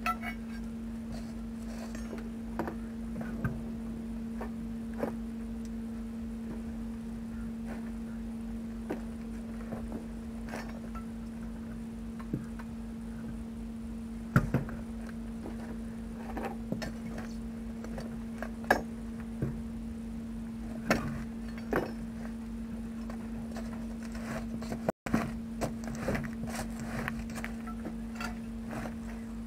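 Scattered clanks and knocks from a truck's dual rear wheel and tools being handled, a few sharply louder, over a steady low hum.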